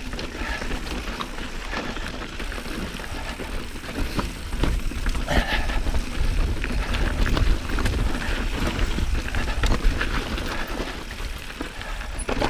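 Mountain bike rolling over a dry, rocky dirt trail: tyres crunching on gravel, with many small clicks and rattles from the bike over a steady low rumble.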